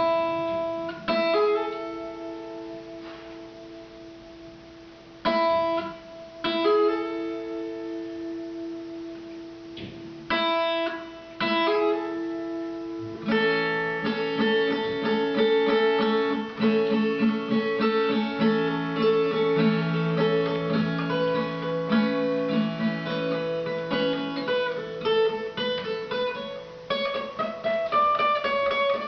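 Guitar playing: single chords struck and left to ring through the first half, then a continuous, busier strummed and picked passage from about halfway through.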